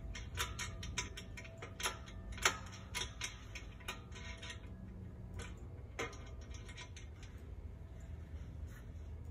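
Light metal clicks and ticks of a hex bolt and flange nut being turned by hand on a steel pedal bracket. There is a quick run of clicks for the first four seconds or so, then a few scattered ones.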